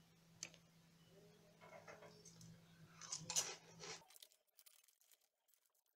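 Faint crackling and rustling from hands handling crackers and their packets, loudest about three seconds in. Under it runs a low steady hum that cuts off suddenly about four seconds in, leaving only faint scattered ticks.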